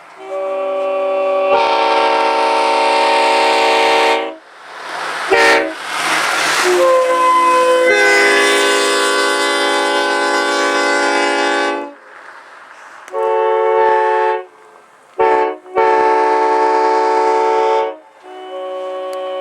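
Leslie S5T five-chime railroad air horn, a former N&W MOD horn with its dowel pins drilled out, blowing a chord on compressed air in a series of blasts. The longest lasts about six seconds in the middle, with its notes coming in unevenly at the start, and there are several shorter blasts and one quick toot.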